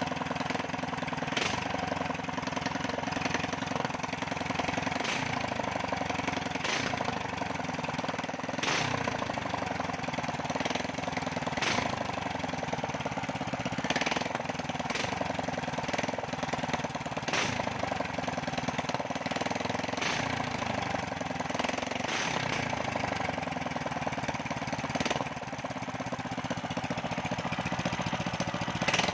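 A small 8 hp engine with a 30 mm Keihin carburettor running steadily, its speed drifting slightly, with a sharp crack every two or three seconds.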